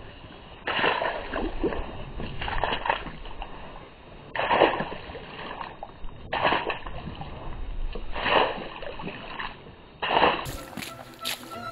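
A runner's trail shoes splashing and squelching through wet mud and puddles, a wet slap every second or so. Near the end this gives way to music with a ticking beat.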